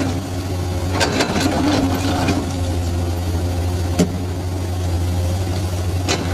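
Komatsu hydraulic excavator's diesel engine running with a steady low drone, with a few sharp metallic knocks from the working machine, the clearest about four seconds in.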